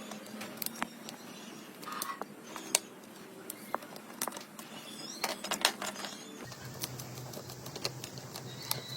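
Irregular sharp clicks and light taps of small hard objects being handled. About six and a half seconds in, the background changes suddenly and a low hum comes in.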